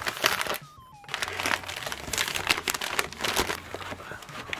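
Brown paper packaging bag crinkling and rustling in irregular bursts as it is handled and opened, with a short lull about a second in.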